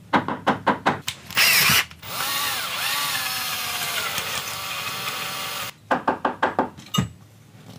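Cordless drill running for about three and a half seconds, its motor whine dipping and rising in pitch. Bursts of rapid clicking come before and after it.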